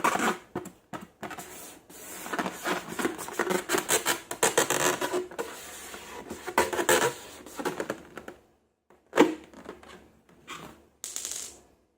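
Hands working slime: a dense run of sticky crackles and clicks that stops about eight and a half seconds in. One sharp click comes about nine seconds in, and a short high rustle near the end.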